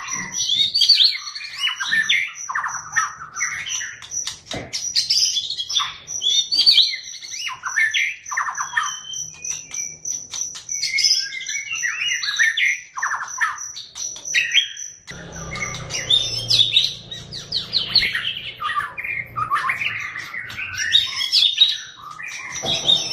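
White-rumped shama (Medan-type murai batu) singing loudly in a long run of varied phrases: rapid chattering runs (the 'crecetan' style) mixed with whistled sweeps and trills. A steady, high, even pulsing runs faintly behind the song, stopping for a moment about two-thirds of the way through.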